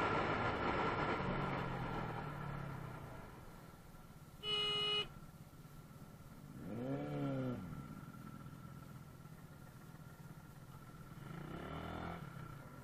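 Road traffic: a vehicle passes and fades away, then a short horn beep sounds about four and a half seconds in. Later, engines rev up and drop back twice, once near the middle and once near the end.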